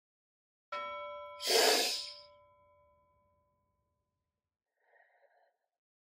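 A small bell struck once, ringing with several clear tones that fade over about three seconds, followed almost at once by a deep audible breath, the loudest sound, to begin a cool-down breathing exercise. A brief faint sound comes near the end.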